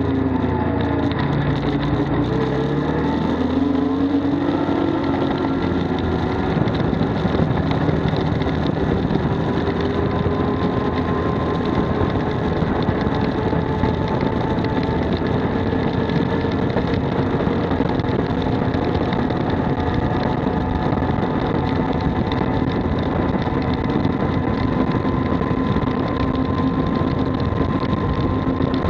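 Arctic Cat Wildcat 1000 side-by-side's big V-twin engine running under way. Its pitch drops over the first few seconds, then climbs and holds steady as the machine drives on.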